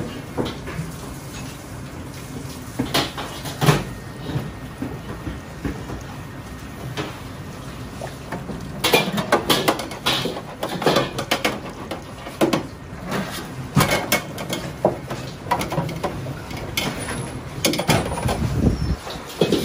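Soapy stainless-steel wok range being scrubbed, with scattered knocks and clatters of metal grates and panels that come thicker about halfway through. Near the end, a wok clanks against the range's burner ring.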